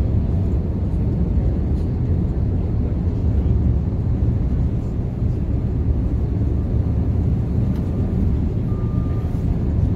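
Passenger ferry's engines running with a steady, loud low rumble, heard from the open upper deck with wind noise mixed in.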